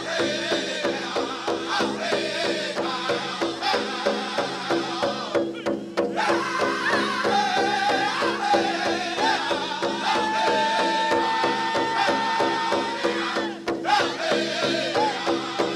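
Pow wow drum group singing a Chicken dance song over a steady beat on a big drum, with one long held note about ten seconds in.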